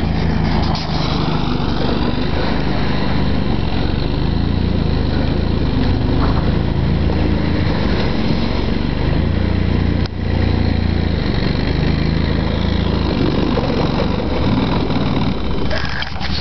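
ARGO Avenger 8x8 amphibious ATV's engine running as it drives through a swamp, its note rising and falling with the throttle. A short knock about ten seconds in.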